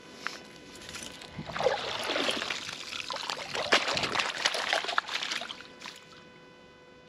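Water splashing and dribbling around a wire-mesh fish basket on a rope, with small clicks and knocks, for a few seconds, after which it dies down.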